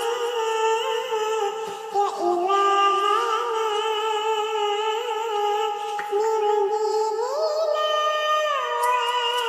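A high, wordless singing voice holding long notes and gliding smoothly between them, sliding up in pitch about two-thirds of the way through and back down near the end.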